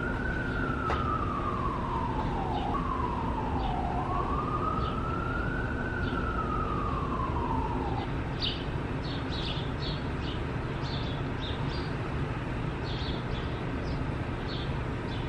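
Emergency vehicle siren wailing, its pitch slowly rising and falling over several seconds before it stops about eight seconds in, over a steady low city rumble. Short high chirps follow.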